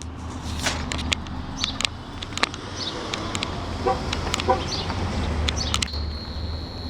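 Outdoor street ambience: a steady low hum with scattered light clicks, and two short bird calls about four seconds in. A steady high insect buzz, like a cricket, starts near the end.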